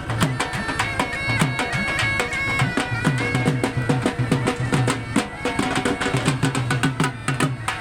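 Background music in a folk style: a reedy wind instrument holding sustained notes over a fast, steady drum beat.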